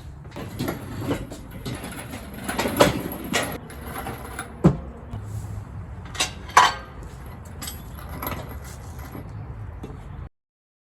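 Scattered metallic clinks and knocks of engine parts and tools being handled, three of them sharper and louder, over a steady low hum. The sound cuts off abruptly near the end.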